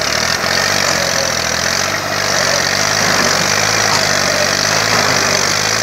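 IMT 540 tractor's diesel engine running hard and steady under load as the stuck tractor strains to drag its loaded trolley out of deep mud.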